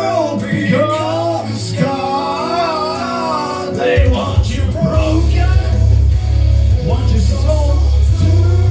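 Rock song with a male voice singing over guitar; a heavy, loud bass comes in about four seconds in.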